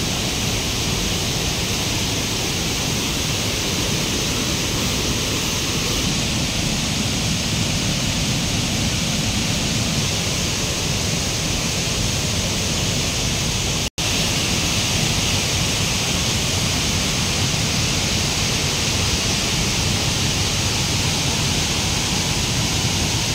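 Waterfall pouring steadily: a constant, loud rush of falling water. The sound drops out for a split second about fourteen seconds in.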